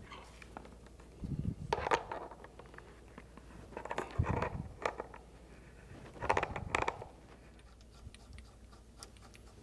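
Handling noise of a water supply hose and brass fittings being fitted together by hand: three short bursts of scraping and clicking.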